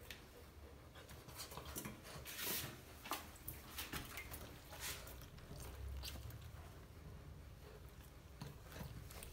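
Faint scattered rustles and soft clicks from movement around a litter of newborn puppies on cloth and cardboard.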